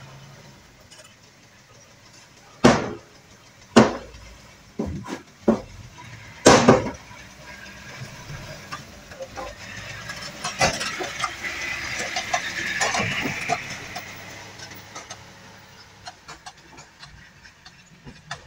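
Dump truck's tipper body and tailgate banging several times as the emptied body comes down, a run of loud clanks about three to seven seconds in, followed by a longer hissing rush over the low running of the truck's engine.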